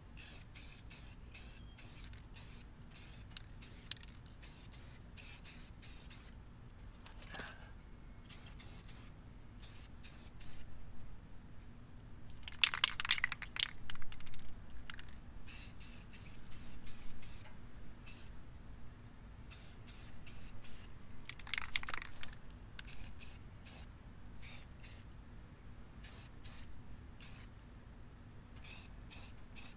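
Aerosol spray-paint can spraying black paint onto a car wheel rim in many short hissing puffs. There are two louder, longer stretches, one about halfway through and one a little past two-thirds.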